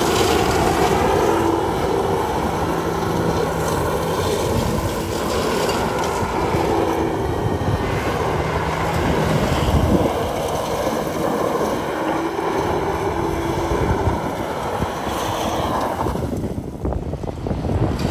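Toyota Mark X 250G's V6 engine revving hard as the car drifts on gravel, its pitch holding and changing as the throttle is worked, with wind noise on the microphone.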